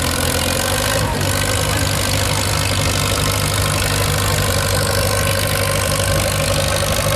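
Farmall Super M tractor's engine running under load as it pulls a weight-transfer sled, with a steady, evenly pulsing exhaust note.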